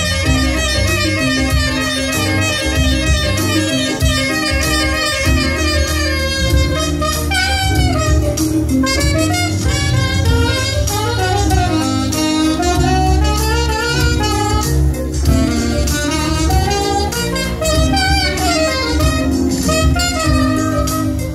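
Saxophone played live over a recorded smooth-jazz backing track with a steady bass line. About six seconds in, the sax moves from a repeating phrase to bending, sliding runs.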